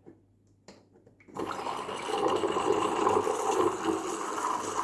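Espresso machine steam wand hissing into milk to froth it. It comes on about a second in and runs steadily after that.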